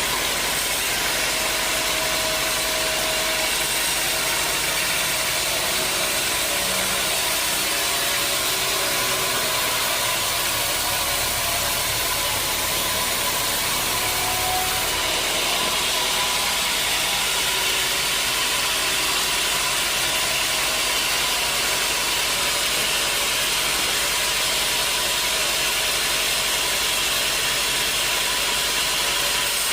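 Sawmill machinery running steadily, a continuous mechanical noise with a slight change in its hiss about halfway through.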